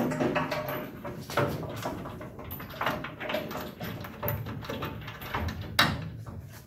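Metal knocks, clunks and scrapes as a car's front K-frame is held up against the body shell and its bolts are started by hand, with a sharp knock near the end.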